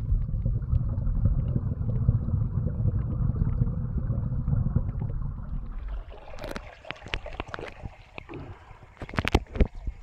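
Muffled low rumble of flowing stream water heard through a camera held underwater, which drops away about six seconds in. Then a few sharp knocks and splashes, several close together near the end, as the camera comes up out of the water.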